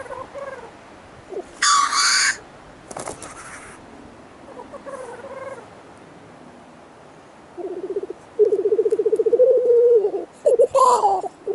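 Male black grouse displaying at a lek: two short, loud hissing sneezes about two and three seconds in, then from about eight seconds in a long, rapid bubbling coo, broken by another hiss near the end.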